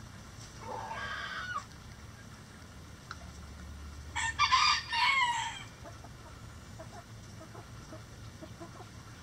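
Rooster crowing once, a loud cock-a-doodle-doo about four seconds in that lasts under two seconds, its last note falling in pitch. A shorter, quieter chicken call comes about a second in, and soft clucking follows the crow.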